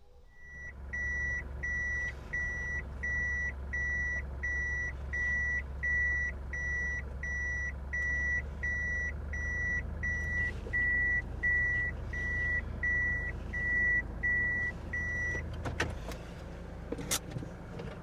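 Toyota HiAce van's engine running while its reversing warning beeps evenly, about one and a half beeps a second, as the van backs up. The beeping and the engine stop about two-thirds of the way through, followed by a few sharp clicks.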